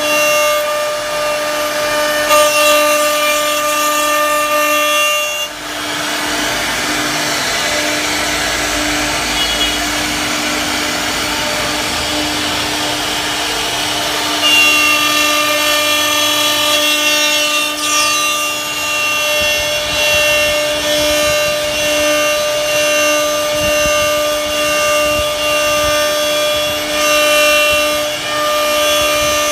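CNC router spindle running with a steady high whine while its bit cuts wood with a rasping hiss. The whine's upper overtones fade for several seconds about five seconds in, leaving mostly the cutting hiss, then return about halfway through.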